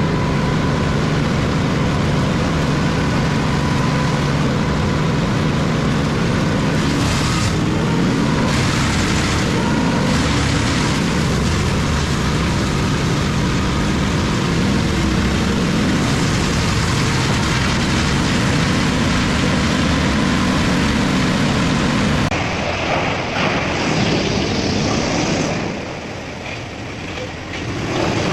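Bandit wood chipper running loud and steady as full-length trees are fed in, with a brighter rush of chipping about seven to ten seconds in. Near the end the sound cuts abruptly to a different, wavering machine noise.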